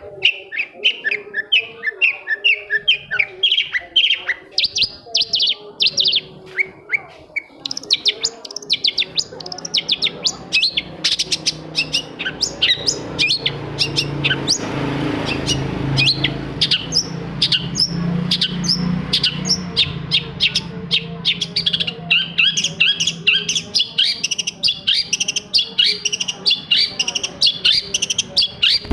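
Long-tailed shrike (cendet) singing a fast, unbroken chatter of short sharp notes, several a second, with a low hum underneath through the middle.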